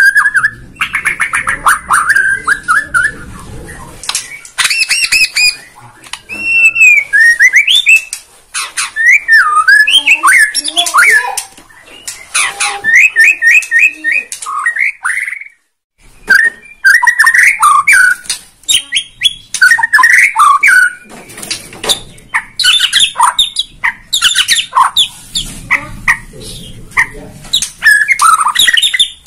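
A caged white-rumped shama of the Bornean type (murai Borneo) singing loudly and without let-up, running through a varied repertoire: clear whistles, rapid runs of repeated notes, harsh rattling calls and quick glides. The singing breaks off briefly about halfway through.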